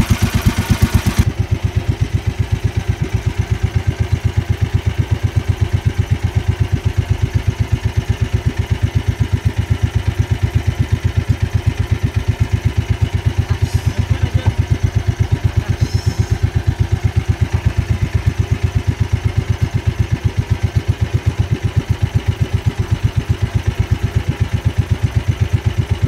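Small outrigger boat's engine running steadily at trolling speed, with an even, rapid pulse. A brighter hiss cuts off about a second in.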